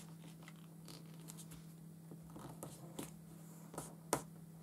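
Sheet of origami paper being folded and creased by hand: faint rustles and a few light crinkles and taps, the sharpest about four seconds in, over a steady low hum.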